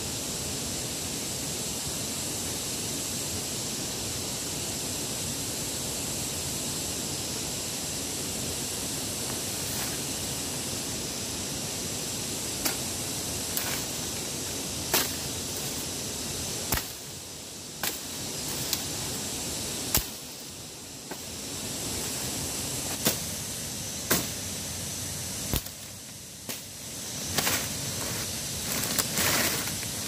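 Steady rushing noise, then, from a little before halfway, sharp irregular knocks, some close together and some a second or more apart.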